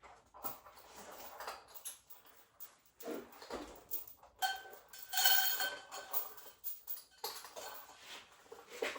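Irregular clattering and clinking of hard objects, with one ringing metallic clink about halfway through.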